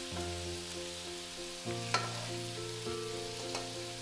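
Wooden spatula scooping fried meat and onion from a frying pan into a pot of roasted potatoes: a few sharp scrapes and knocks, about two seconds in and again near three and a half, over a steady hiss. Soft background music runs underneath.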